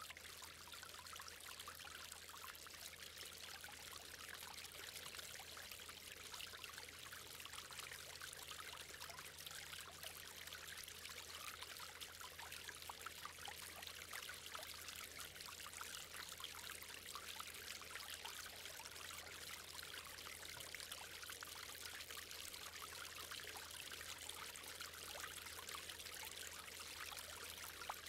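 Water from a granite fountain splashing and running steadily as it falls into the basin, with a steady low hum underneath.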